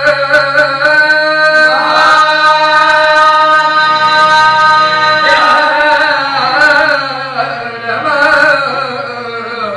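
Live qawwali: male singing voices over the steady sustained chords of a harmonium. Tabla strokes come in a quick even run in the opening second, then only now and then.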